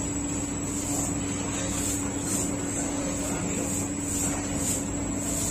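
Bakery machinery running steadily, most likely the dough divider-rounder, with a constant low hum, a thin high whine and a faint swish repeating roughly every half second.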